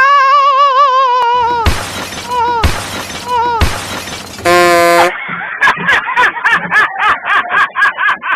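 Comedy sound effects: a wavering, wailing pitched sound, then about three seconds of crashing, shattering noise bursts. A short steady tone follows, and from about five seconds in, music with a quick, even beat.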